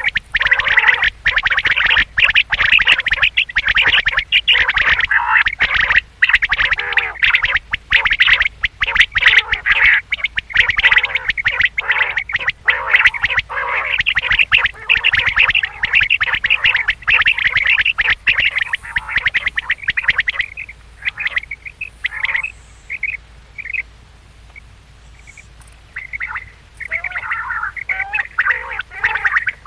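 Quail calling in a dense, rapid chatter that thins after about twenty seconds to scattered short calls with brief quiet gaps, then grows busier again near the end.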